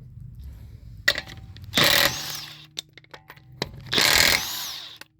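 Impact wrench loosening the wheel's 19 mm lug nuts, with two short bursts of hammering about two seconds apart.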